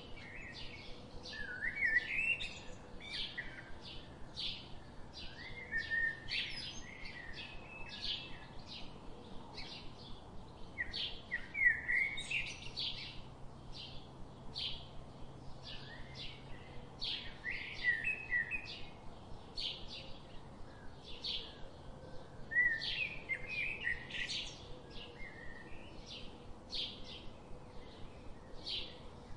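Small birds chirping: a short high chirp repeated about twice a second, with bursts of twittering song every few seconds.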